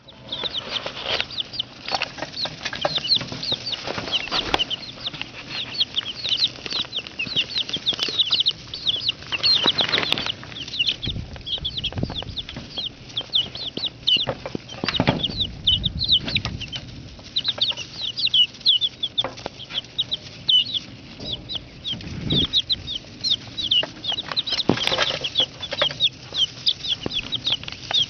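A brood of young chicks peeping constantly: many short, high chirps overlapping without a break. Now and then there is a brief rustle or bump.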